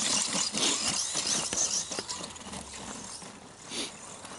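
ECX Ruckus 1/10 RC monster truck driving over rough ground, its tyres and chassis making a quick crackling, skittering patter. It fades over the first few seconds as it moves off, with one brief louder rattle near the end.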